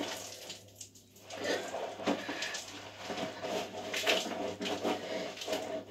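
Soapy skin being rubbed and scrubbed by hand in short, irregular strokes, with a brief pause about a second in.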